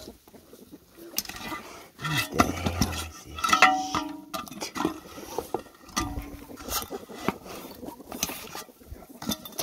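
Chickens clucking and calling, mixed with knocks and clinks of an aluminium heat-lamp reflector being handled against the coop's wooden frame. The loudest calls come around the middle.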